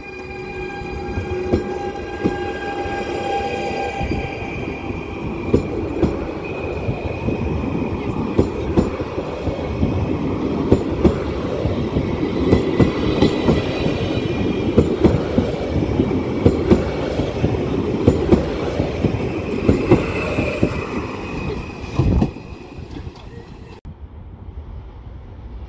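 A PKP Intercity ED160 (Stadler FLIRT) electric multiple unit pulling away from the platform and running past: a whine from the electric traction with steady tones early on, then rising running noise with wheels clicking over rail joints. The noise fades as the last car passes, with a single thump near the end.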